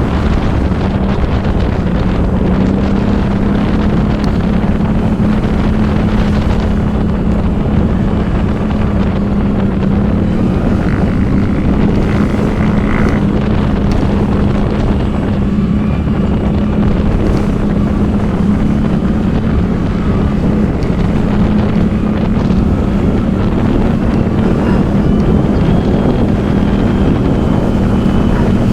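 ATV engine running at a steady speed, with wind buffeting the microphone.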